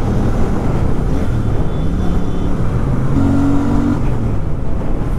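Royal Enfield Super Meteor 650's 648 cc parallel-twin engine running while the motorcycle is ridden slowly through traffic, its pitch rising and falling a little with the throttle.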